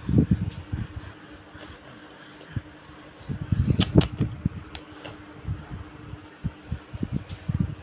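Muffled low thumps and rubbing of movement and handling close to the microphone, in clusters, with one sharp click about four seconds in, over a steady low fan hum.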